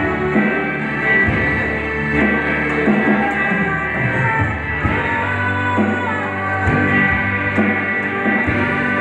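A live band plays a song: a woman sings into a microphone over electric guitar and an electronic drum kit, all amplified.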